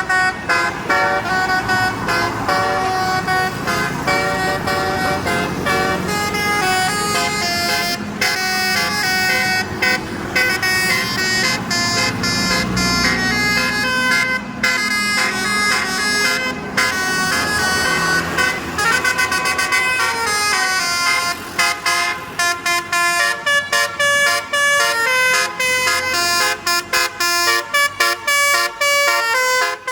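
Basuri multi-tone bus horn ('telolet') playing a melody of stepped horn notes, one note after another without pause, over a low engine rumble. Toward the end the notes come shorter and choppier.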